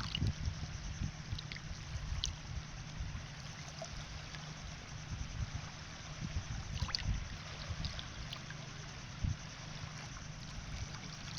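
Waves washing steadily, with a low rumble underneath.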